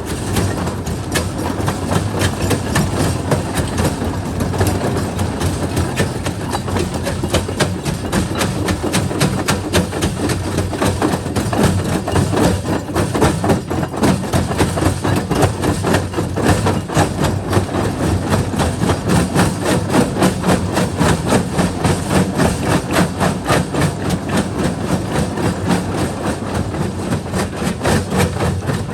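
Quarry jaw crusher running and crushing rock: rapid, regular knocks and crunching over a steady machine drone.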